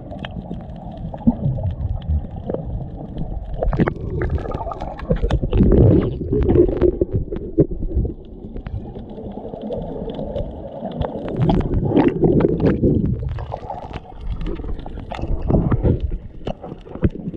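Muffled underwater noise from a camera held below the surface: low, uneven water sound that swells and fades, with scattered clicks and knocks.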